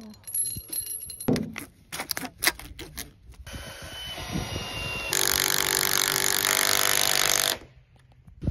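Metal lag screws clinking and clattering together in the hand, then a cordless driver running hard and steady for about two and a half seconds as it drives a lag screw into a wooden rafter, stopping abruptly.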